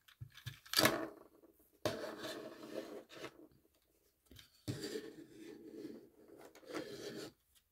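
Plastic Transformers Legacy Armada Hot Shot toy car handled and pushed along a desk mat. There is a click about a second in, then two stretches of scraping, rubbing noise.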